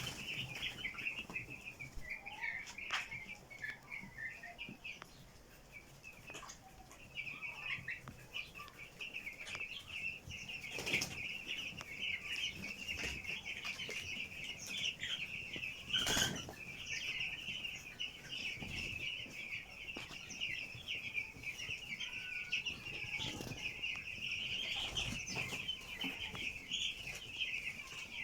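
A flock of ten-day-old broiler chicks peeping continuously, many high chirps overlapping, with a few short sharp noises now and then.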